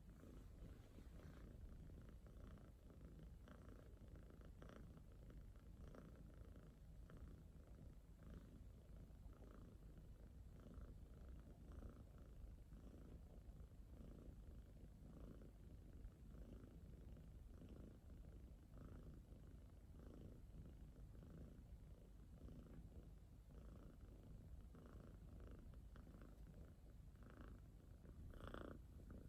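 A domestic cat purring faintly and steadily, each breath giving a soft swell about once a second, while it drowses toward sleep.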